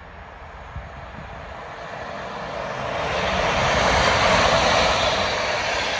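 Train approaching and passing close by: a rushing wheel-and-rail noise that swells to its loudest about four seconds in and begins to ease near the end.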